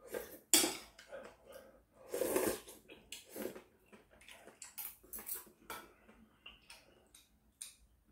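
A person slurping hot kalguksu noodles off chopsticks in a series of short, noisy slurps, the longest about two seconds in.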